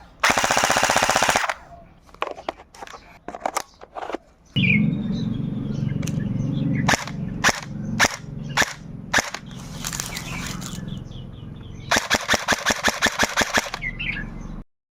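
SBL Radian Model 1 electric gel blaster firing: a rapid full-auto burst at the start, then scattered single shots, and another quick burst of about a dozen shots near the end. A steady low rumble runs underneath from about four and a half seconds in.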